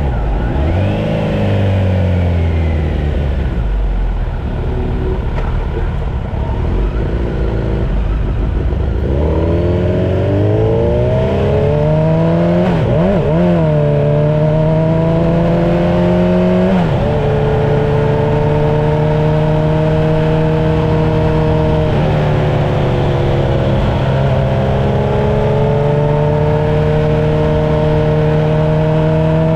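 Motor-vehicle engine running under way, with road and wind noise: its pitch sinks over the first several seconds, climbs as it accelerates about ten seconds in, drops sharply at a gear change about seventeen seconds in, then holds steady at cruise.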